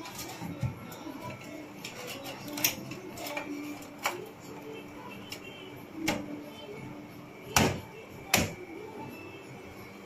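Handling knocks and clicks from the sheet-steel chassis of an open desktop PC case: about half a dozen scattered, sharp knocks, the two loudest about a second apart near the end.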